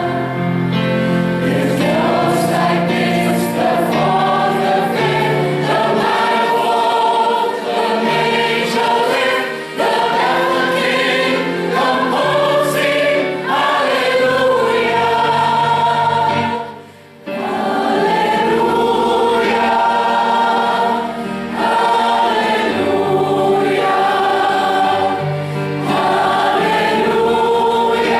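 Choir singing a gospel hymn, sustained phrases moving from note to note, with a brief pause about two-thirds of the way through.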